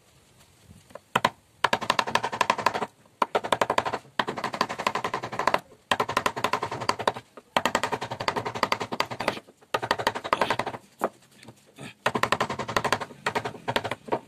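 Rapid light mallet taps on a wood-carving chisel cutting into a carved wooden panel, coming in quick runs of a second or so with short pauses between, about seven runs in all.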